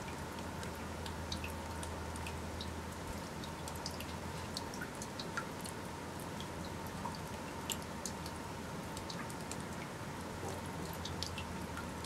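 Water dripping from wet moss on rock: many small, irregular drips over a steady rushing background.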